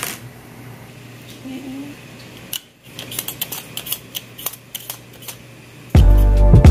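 Potatoes being peeled: a run of quick, light scraping strokes from about two and a half seconds in. Background music starts loudly near the end.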